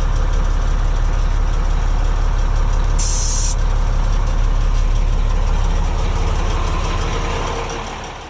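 Heavy truck's diesel engine idling steadily, with a short hiss of released air about three seconds in. The sound fades out near the end.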